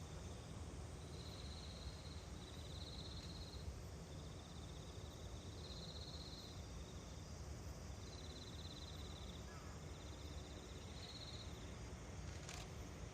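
Faint insect trilling: high, buzzing bursts of about a second each, repeating every second or two and alternating between two close pitches, over steady outdoor background noise. A single sharp click near the end.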